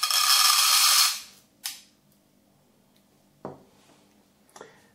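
Steel shot pellets pouring out of a cut-open 3-inch steel shotgun cartridge into a metal tin: a dense rattling clatter for about a second, then a brief second rattle and a faint knock.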